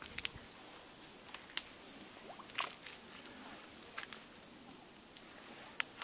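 Footsteps on dry leaves and twigs in brush: a handful of scattered sharp crackles at uneven intervals over a faint steady hiss.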